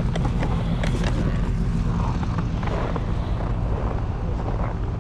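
Pickup truck engine idling steadily, with scattered light clicks and knocks over it.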